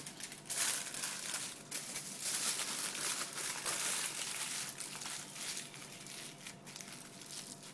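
Aluminium foil being folded and scrunched by hand around a potato: an irregular crinkling crackle that thins out toward the end.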